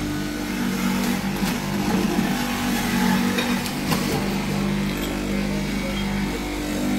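A steady low mechanical hum, with a few faint clinks over it.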